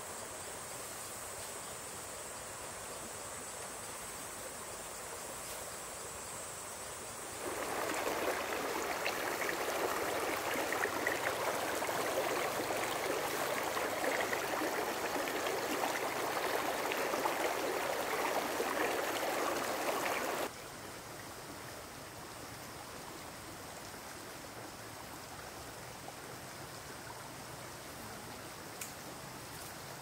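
Steady high insect buzzing, then running water cuts in abruptly, runs steadily for about thirteen seconds and stops suddenly, leaving a quieter background hiss.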